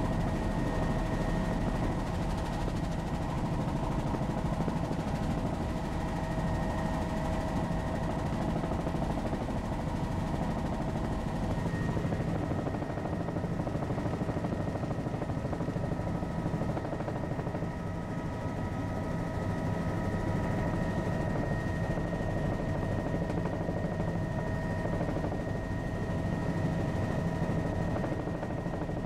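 Helicopter in steady cruise flight: a rapid rotor chop under a constant turbine and gearbox whine, holding an even level throughout.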